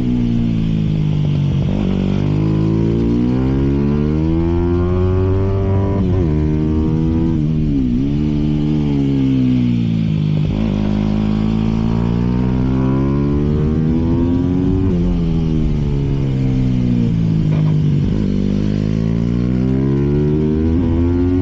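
Aprilia RS 250 SP two-stroke motorcycle engine running, its revs rising and falling again and again in smooth sweeps of a few seconds each.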